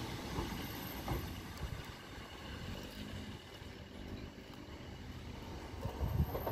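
Northern Class 156 Super Sprinter diesel multiple unit pulling away: its diesel engine and wheels make a steady low rumble that grows a little fainter as it draws off. A few heavier low thumps come near the end.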